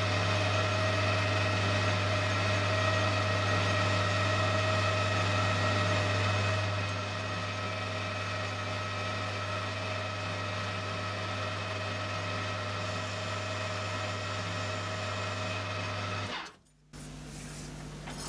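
Colchester Student metal lathe running with the chuck spinning while a facing cut is taken across a metal part: a steady motor and gearbox hum with several whining tones. It gets a little quieter about seven seconds in. Near the end it cuts off abruptly, leaving a lower, quieter hum.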